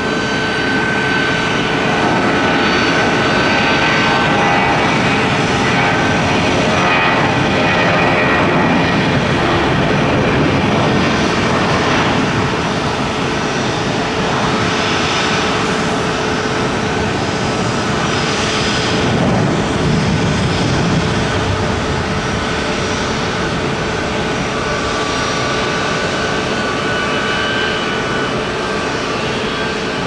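Airbus A320's twin IAE V2500 turbofans at takeoff power through the takeoff roll, rotation and climb-out: a loud, steady jet noise with a constant hum and higher whining tones, loudest about a third of the way in and easing a little as the jet climbs away.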